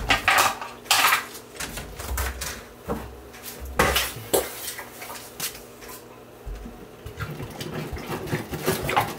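Hollow knocks and clunks of a large plastic water jug being picked up and handled. In the last couple of seconds, water pours from the jug into a plastic fermenting bucket to top up beer wort.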